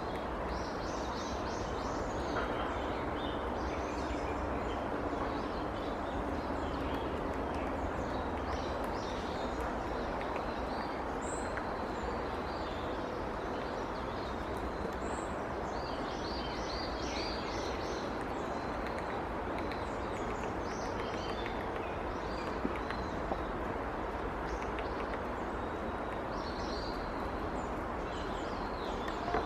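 Small birds chirping in short, quick runs of high notes again and again, over a steady background rumble.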